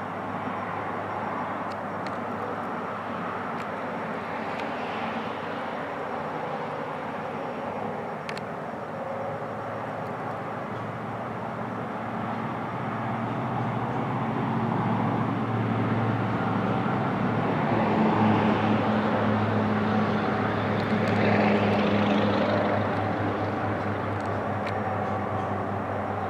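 Steady drone of a distant engine, growing louder about halfway through and easing off again near the end.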